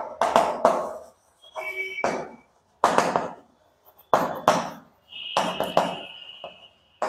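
Chalk writing on a blackboard: a run of short scratchy strokes and taps, with a thin high squeak from the chalk about a second and a half in and a longer one from about five seconds in.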